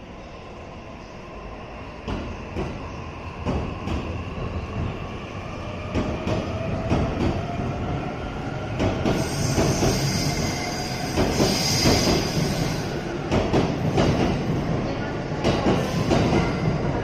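E657-series electric express train pulling out and accelerating, its traction motors whining in a tone that rises steadily in pitch. The wheels clatter over rail joints, louder and quicker as it speeds up, with a high hiss partway through.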